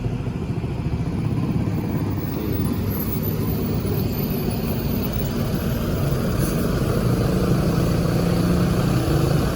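Large bus engine running with a steady low drone.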